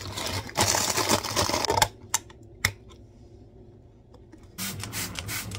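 Plastic zip-top freezer bags crinkling as frozen packages are handled and shifted inside a freezer. A quieter stretch in the middle holds a few sharp clicks and knocks.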